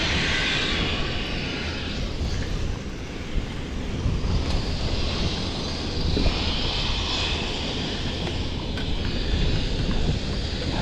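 Wind buffeting the microphone: a steady, uneven rushing rumble.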